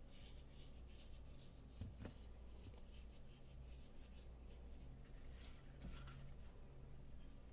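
Near silence with faint scratchy rustling and a few light clicks, one about two seconds in, as raw round scad are handled and moved on a ceramic plate.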